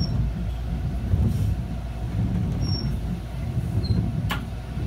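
Steady low rumble heard inside the cab of an Echizen Railway ki-bo articulated light-rail tram while it stands almost still at a street crossing, with one sharp click a little over four seconds in.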